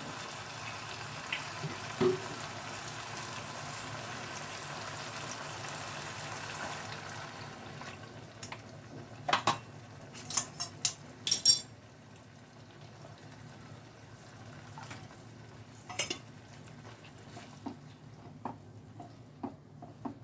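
Curd and sesame masala sizzling in oil in a non-stick pan, a steady hiss that dies away about seven seconds in as rinse water from the bowls goes into the pan. Then a quick run of sharp clinks and knocks of bowls and spatula against the pan, and a few softer knocks of stirring.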